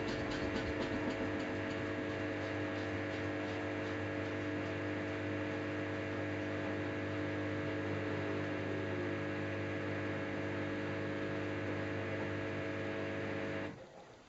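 Samsung Eco Bubble washing machine running mid-cycle with a steady motor hum. The hum cuts off suddenly near the end.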